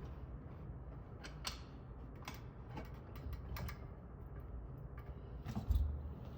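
Metal fittings of a Sloan flush valve clicking and creaking as they are handled and tightened into place, with scattered light ticks and a single low thump near the end.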